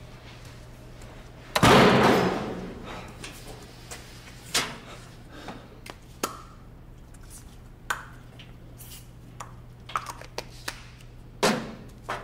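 A heavy door bangs shut about a second and a half in, ringing on in the tiled locker room. After it come a few faint, scattered taps and pings over a steady low electrical hum.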